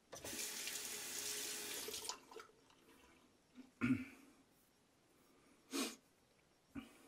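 A water tap running in a steady stream for about two seconds, then shut off. A few short sounds follow, the loudest a thump about four seconds in.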